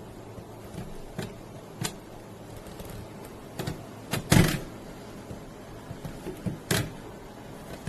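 A few scattered sharp knocks and clicks, the loudest about four and a half seconds in, over a steady low hum.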